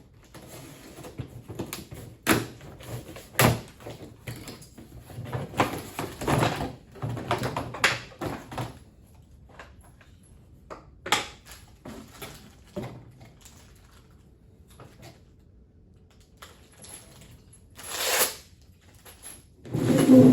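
Large molded-plastic tool cart parts being handled, with irregular clunks and knocks of plastic on plastic and rustling of packaging. The sounds are busiest in the first half, then go quiet, then come two louder scraping knocks near the end.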